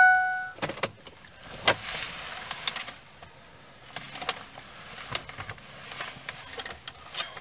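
A short electronic beep, then scattered clicks and soft rustling from hands working the multimeter, its probes and the mirror wiring inside a car. The loudest click comes just under two seconds in.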